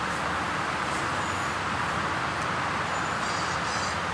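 Steady rushing wind and road noise from riding a Hero Splendor motorcycle, with no distinct engine note standing out.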